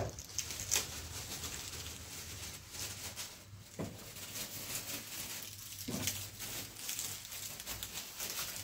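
Plastic bags and foil candy wrappers crinkling and rustling as hands sort through the sweets and unwrap them: a steady scatter of small crackles with a few louder rustles.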